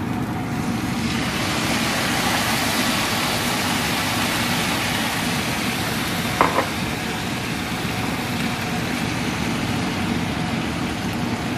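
A cup of water poured into a hot non-stick frying pan of fried soya keema, sizzling steadily as it hits the hot pan and masala; the sizzle builds about a second in. A short knock sounds about halfway through.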